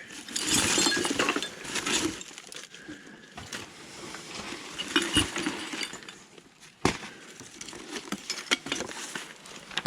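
Rummaging through a pile of old household items: small hard objects clinking and rattling against each other amid handling noise, with one sharp knock about seven seconds in.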